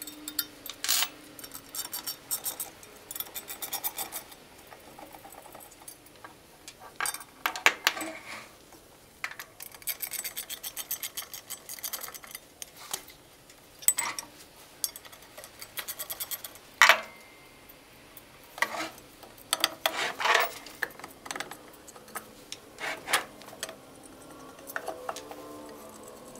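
Irregular small metal clinks, clatters and scrapes of screws, hand tools and the metal fan guard being unfastened and worked off the end of an electric motor, with one louder clack about two-thirds of the way through.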